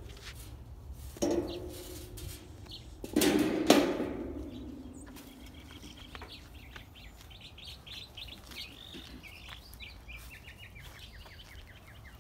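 A songbird chirping outdoors, a quick series of short high notes from about five seconds in. Before it, two loud brief noises, the second and louder one about three seconds in.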